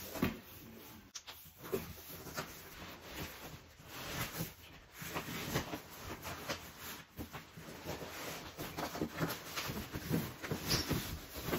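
Handling noise of heavy metal frame pieces being wrestled out of their box: irregular rustling and scraping of packaging with many short knocks.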